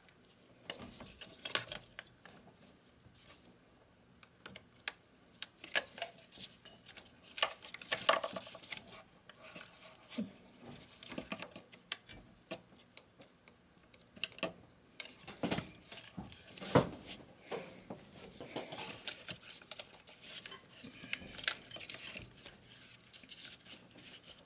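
Scattered small clicks, knocks and rustles of gloved hands working on a Mercedes Sprinter diesel's engine wiring harness and its plastic connectors, a few clicks louder than the rest.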